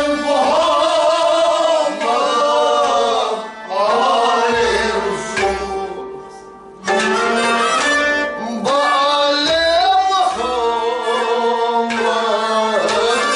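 Sung devotional kalam: voices singing with harmonium, a bowed string instrument and drum strokes. The music falls quieter for about a second halfway through, then picks up again.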